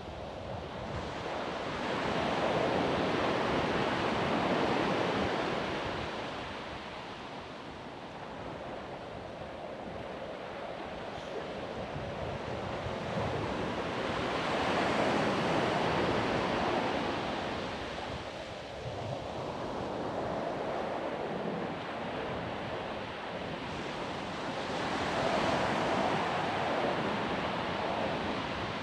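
Ocean waves breaking and washing up a sandy beach, swelling and easing in three surges about eleven seconds apart.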